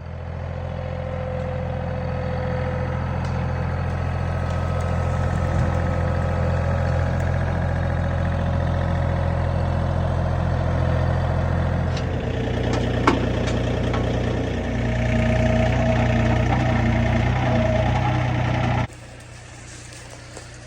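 Tractor engine running steadily. Its note shifts about twelve seconds in, with a single sharp click soon after. The engine sound cuts off abruptly near the end, leaving a much quieter background.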